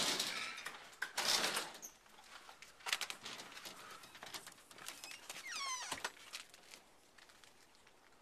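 A house's front door being opened and gone through, with loud rustling and handling noise in the first two seconds and scattered clicks. Close to six seconds in, a short squeak falling in pitch ends in a knock.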